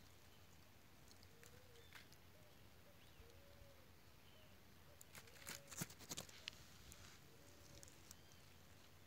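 Quiet outdoor ambience with a faint, short animal call repeating about every two seconds. A brief cluster of sharp clicks and crackles comes a little past the middle.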